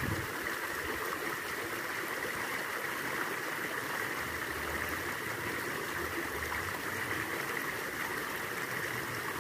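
Shallow stream flowing steadily over snags and debris, a continuous even rush of water.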